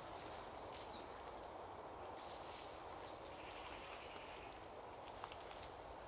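Small songbirds singing in woodland: a short run of quick high notes in the first two seconds, then a rapid trill in the middle, over a steady outdoor hiss. Light rustling of footsteps through undergrowth, and one sharp click near the end.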